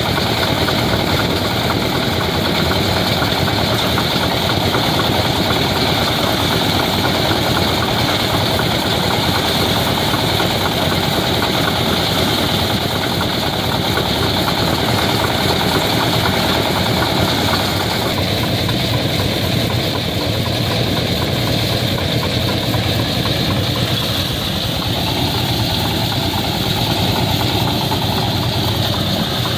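Engine-driven soya bean threshing machine running steadily under load, its engine and threshing drum working as bean plants are fed in.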